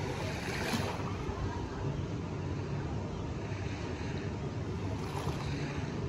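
Gentle harbour water lapping at the shoreline, over a steady low hum and wind on the microphone.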